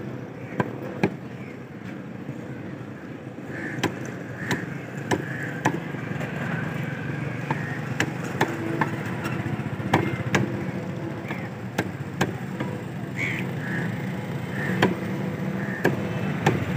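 Meat cleaver chopping chicken pieces on a wooden butcher's block: sharp, irregular chops, roughly one or two a second with short pauses, over steady background traffic noise.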